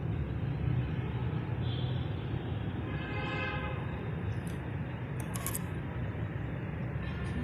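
Steady low engine rumble, running at an even level.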